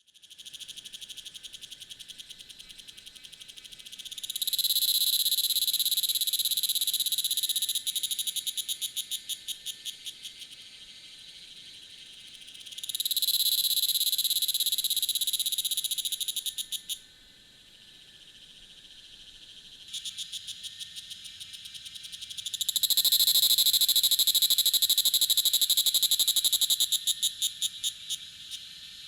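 An unidentified Tanna evening cicada singing. It gives three long phrases, each a loud, steady, high-pitched buzz that breaks near its end into a run of separate pulses, slowing and fading. Quieter pulsing comes between the phrases. The rhythm is quicker than that of the similar small evening cicada.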